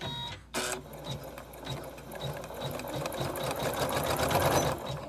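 Janome Memory Craft 9850 embroidery machine starting a design: a brief beep, then the needle stitching at a fast, even rate, getting louder, until it stops just before the end.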